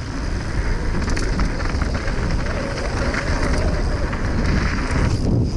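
Wind rushing over an action camera's microphone and mountain bike tyres rolling fast on a dry dirt trail, a steady rumbling noise with small rattles and knocks from the bike. The noise dips briefly near the end.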